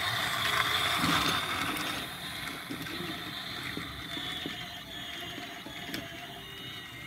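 Battery-powered toy train's small motor and gears whirring as it runs along plastic track, loudest about a second in as it passes close, then a fainter, steadier mechanical whir.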